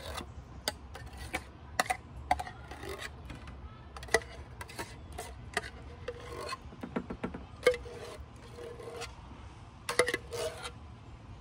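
Opened tin can of pie filling handled over an aluminium pie plate: irregular light clicks, taps and scrapes as the thick blueberry filling is worked out of the can.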